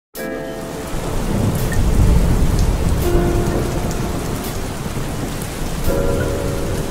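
Steady heavy rain falling, with a deep rumble of thunder that swells about a second in and is loudest around two seconds in.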